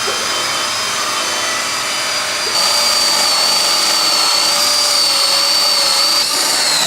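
Electric drill running steadily as it bores a finger hole through the walnut breadboard, a high whine that steps up in pitch and loudness about two and a half seconds in.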